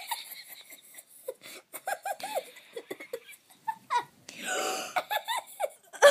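A girl giggling and laughing close to the microphone, in short separate laughs with a breathy laugh about four and a half seconds in.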